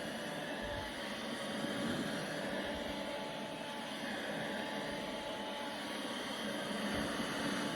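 Vacuum cleaner running steadily, an even rushing noise with a faint motor hum.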